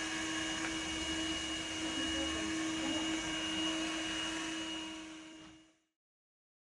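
Window-cleaning robot's suction fan running steadily, a constant hum with a high whine on top, fading out and stopping about five and a half seconds in.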